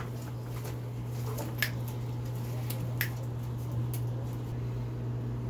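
A steady low hum with a few faint, sharp clicks, about a second and a half in and again near three seconds, as a fishing hook and plastic drinking straws are handled.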